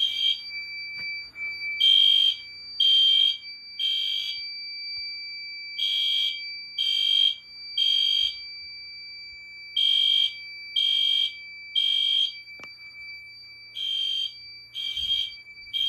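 Fire alarm system in alarm after a pull station is pulled, sounding the temporal-three evacuation pattern: three short high-pitched beeps, a pause, then the group again about every four seconds. A faint steady high tone runs underneath.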